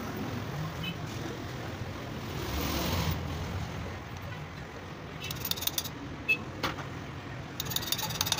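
Light metallic clicks and clinks in two short clusters in the second half, as a Honda CG 125 cylinder barrel is worked down over its studs and onto the piston. Under them runs a steady low background rumble that swells briefly about three seconds in.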